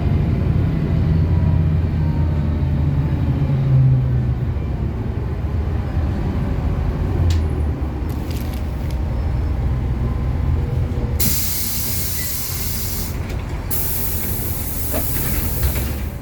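City bus engine running, heard from inside the bus. About eleven seconds in, a loud compressed-air hiss from the bus's pneumatic system sounds twice, with a short break between, as the bus stands at a stop.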